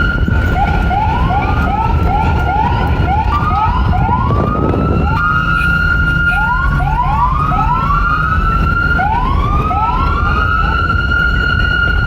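Police car siren: a steady high tone is held throughout while runs of quick rising whoops, about three a second, sweep up to meet it, pausing briefly in the middle; near the end only the steady tone remains. A low rumble runs underneath.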